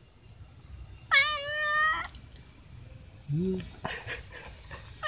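Stray cat meowing for food: one loud, high, drawn-out meow about a second long, starting about a second in, with another meow just starting at the very end.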